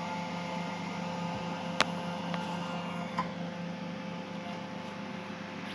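Mini CNC machine's motor running with a steady hum, with two sharp clicks about two and three seconds in.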